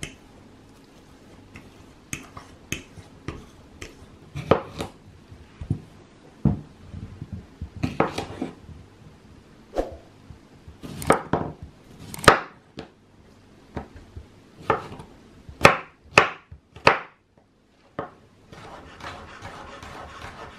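Kitchen knife cutting a cucumber on a wooden cutting board: irregular sharp chops of the blade through the cucumber and onto the board, sometimes seconds apart, sometimes two or three in quick succession. Near the end the chops give way to a steadier rustling for a couple of seconds.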